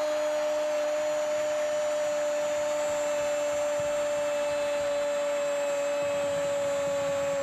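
A football commentator's long, held shout of 'gol' on one steady, slowly falling note, celebrating a goal, over stadium crowd noise.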